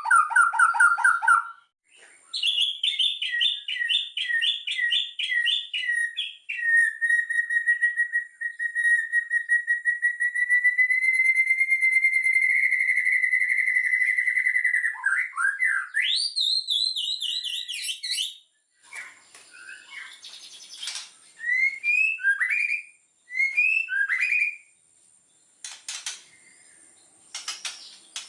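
White-rumped shama singing: fast repeated notes and a rapid trill, then one long held whistle lasting several seconds that ends in a rising sweep and a burst of quick notes. Near the end come short upward-slurred notes and clicks.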